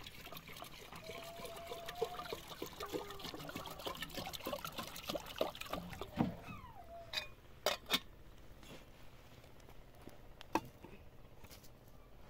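Water pouring from a plastic jerrycan into a metal kettle, trickling for about the first half. Then a few sharp knocks.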